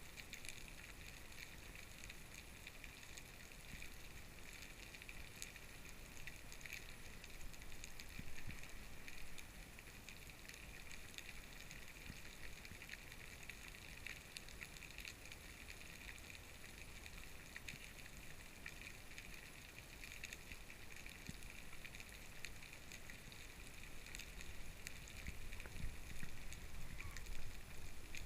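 Faint underwater ambience heard through a diving camera: a steady hiss with scattered small clicks and crackles, and low water rumble growing near the end.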